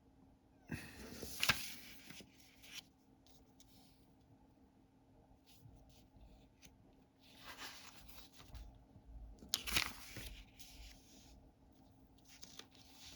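Paper envelopes being handled and slid against one another, rustling in two spells, about a second in and again around eight to ten seconds in, over a faint steady hum.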